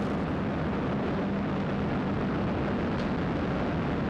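Antares rocket's two RD-181 first-stage engines at liftoff: a loud, steady, deep noise of rocket exhaust as the rocket climbs off the pad.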